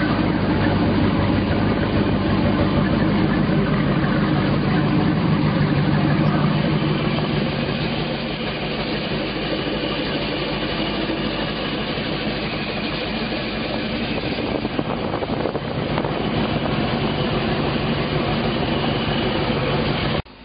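A 2006 Boulton Kodiak jet boat's 350 V8 engine running steadily at low speed. The level eases slightly about 7 seconds in and picks up again near 16 seconds.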